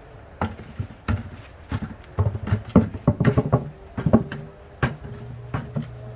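Potatoes knocking against each other and the bucket as they are handled and counted: a string of irregular dull knocks, busiest in the middle.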